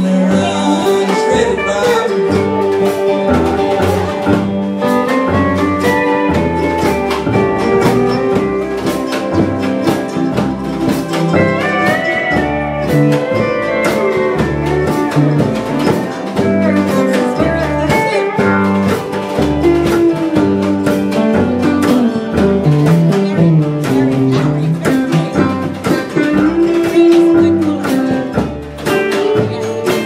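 Live country band playing a mid-tempo song on acoustic guitar, pedal steel guitar and upright bass, with a steady beat.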